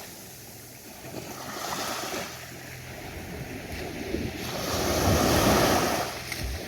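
Ocean waves breaking on a beach: a small wash about a second and a half in, then a larger wave breaking and rushing up the shore, loudest about five seconds in before it fades.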